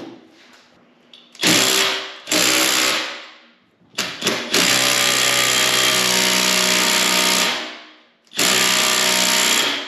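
Hercules 20-volt brushless cordless impact driver with a 24 mm socket hammering on the flywheel nut of a Kawasaki 340 two-stroke snowmobile engine. It runs in several bursts that stop and start sharply, the longest about three seconds in the middle, on a tight nut that takes repeated tries to break loose.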